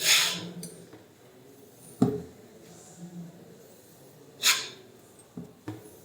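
Hand assembly of printer rods and slider blocks: a sharp click about two seconds in and a couple of light knocks near the end, with two short hissing exhales at the start and past the middle.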